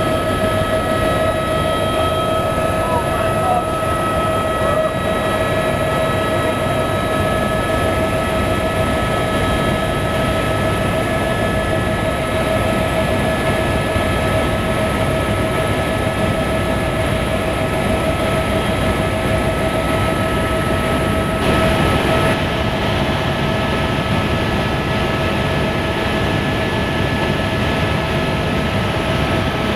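Helicopter engine and rotor noise heard from inside the cabin in cruise flight: a loud, steady rumble with a steady high whine over it.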